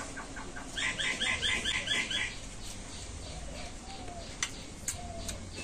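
A bird chirping: a quick, even run of about eight short chirps in the first two seconds, then fainter chirps. Two sharp clicks come near the end.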